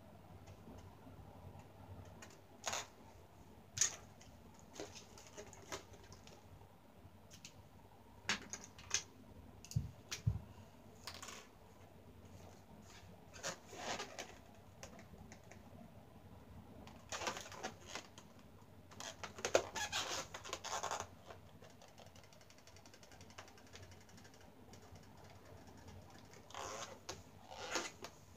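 Faint, scattered clicks and short scratchy rubs of a marker pen drawing on a latex balloon and of the balloon being shifted in the hands, with a denser run of scratching strokes a little past the middle.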